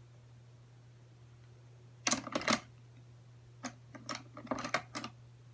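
Quick clicks and clatter of makeup brushes and an eyeshadow palette being handled, in a short cluster about two seconds in and another from about three and a half to five seconds, over a steady low hum.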